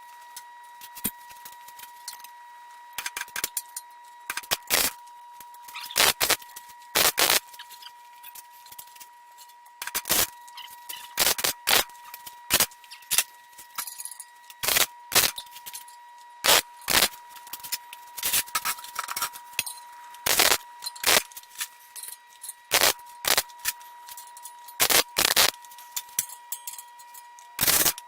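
Arc welding on steel rack stands in many short crackling bursts, like tack or stitch welds, each lasting a fraction of a second with irregular pauses between. A faint steady high tone runs underneath.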